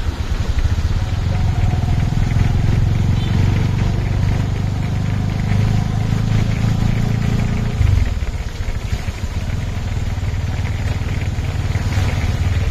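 Tuk tuk engine running as it carries passengers along a wet street, heard from inside the cab; the low drone eases off about eight seconds in.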